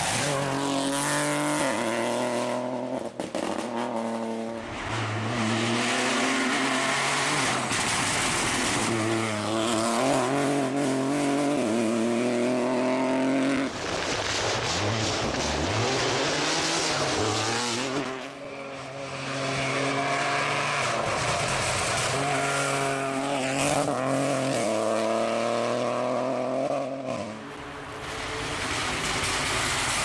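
Peugeot 208 Rally4 rally car's turbocharged three-cylinder engine revving hard at full throttle, its pitch climbing through each gear and dropping back at every shift, as the car accelerates past on several runs.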